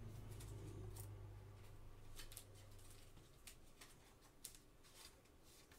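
Faint ticks and slides of Panini Select basketball cards being flipped through by gloved hands, with a low hum that fades out about halfway through.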